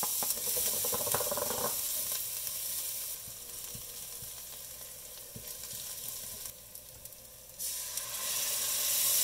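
Chopped cilantro and chilies sizzling in hot oil in a stainless steel pot, stirred with a wooden spoon that scrapes and knocks against the pan. The sizzle eases off midway, then grows louder near the end as the lemon juice, coriander and turmeric mixture is poured in.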